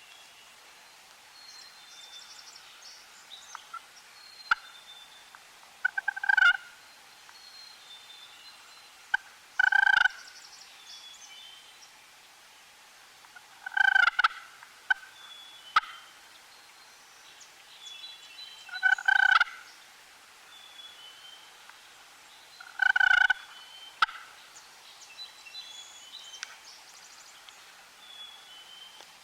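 Wild turkey gobbler gobbling five times, one loud rattling gobble every four to five seconds. Small birds chirp faintly throughout.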